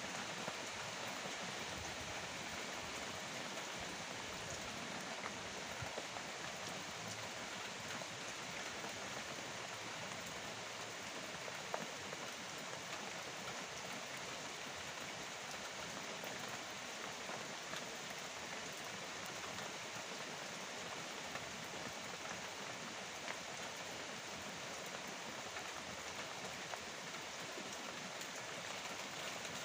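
Steady rain falling, an even hiss with the occasional sharp tick of a drop.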